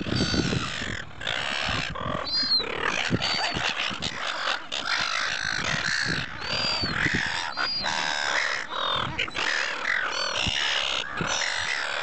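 A flock of silver gulls squawking, harsh repeated calls overlapping one another, over a constant background hiss.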